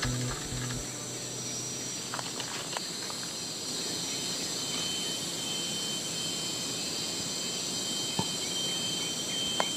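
Insects droning steadily in several high pitches, with a thin, steady high whine joining about four and a half seconds in. A couple of faint clicks come near the end.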